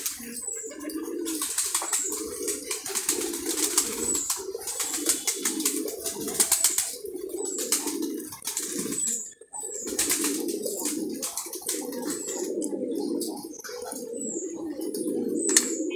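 Domestic pigeons cooing over and over, with the dry rattle of grain feed being stirred by hand.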